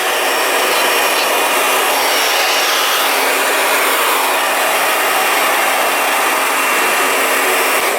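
Handheld hair dryer running steadily, a loud even rush of blown air with a faint steady hum underneath.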